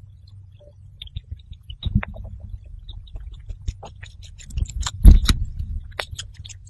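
Hamster chewing a grape: short clicks and crackles that grow denser and louder from about a second in, with a loud knock about five seconds in, over a steady low hum.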